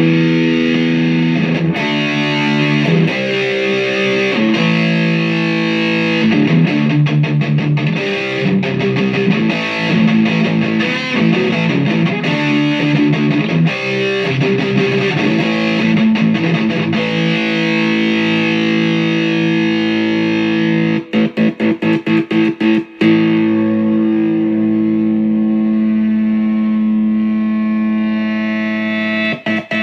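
Heavily distorted electric guitar, a B.C. Rich Mockingbird with FU-Tone pickups, played loud through a Washburn Solo Distortionist stacked into a Digitech Screamin' Blues and a solid-state Marshall Lead 100 MOSFET amp: riffs and chords, a quick run of short choppy stabs about 21 seconds in, then a long held chord ringing out.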